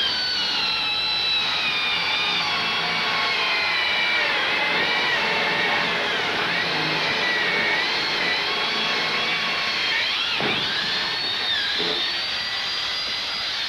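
Electric hand drill running continuously as it bores a hole through an apartment door, its motor whine wavering in pitch as the bit takes load. About ten seconds in it dips sharply for a moment and climbs again, then begins to wind down at the very end.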